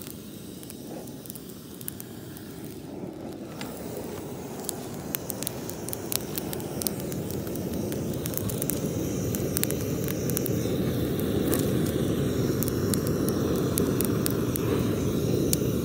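Propane torch blowing its flame into a small wood fire in a brick fire pit: a steady low rush that grows louder, with the burning kindling crackling and popping.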